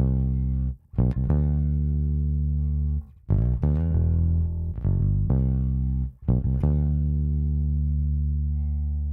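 Electric bass recorded through a studio compressor, playing a slow line of plucked low notes, each held for a second or more. It breaks briefly about one second and about three seconds in.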